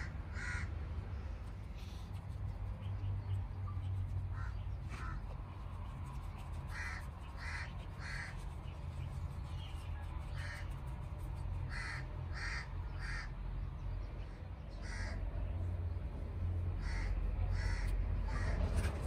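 A bird calling repeatedly: short calls in runs of two or three, about half a second apart, coming back every few seconds. A steady low rumble runs underneath.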